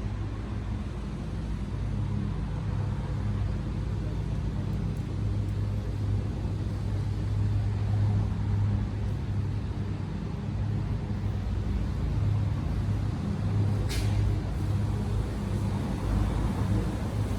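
Steady low mechanical hum over a background hiss, with one sharp click about fourteen seconds in.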